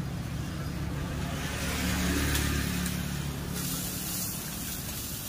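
A motor vehicle driving past on the street, its engine hum and road noise rising and falling away, loudest about two seconds in.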